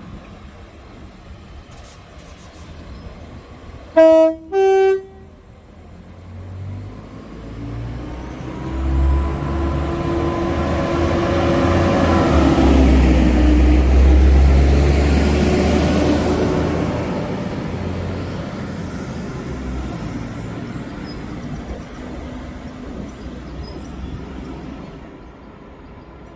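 Train horn sounding two short notes, low then high, followed by the train running past with a deep rumble and a thin high whine that swell and then fade away.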